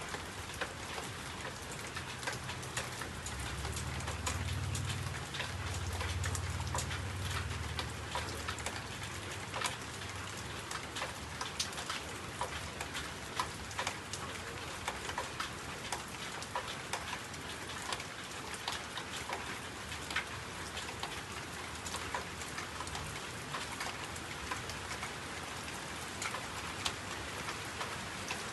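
Steady rain, with many drops ticking sharply on a hard surface, and a low rumble for a few seconds near the start.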